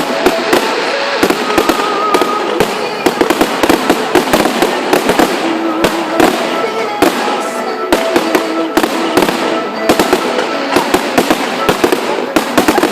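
Fireworks display going off in rapid, continuous bangs and crackles, many bursts a second, with short tones sounding underneath.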